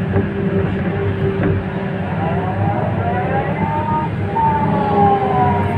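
Excavator's diesel engine running steadily, with a whine that rises and then falls in pitch through the second half.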